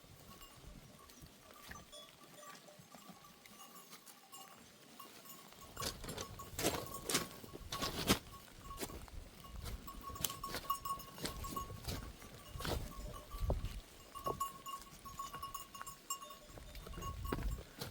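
A herd of goats on the move, with a livestock bell ringing on and off and scattered sharp knocks, loudest about six to eight seconds in.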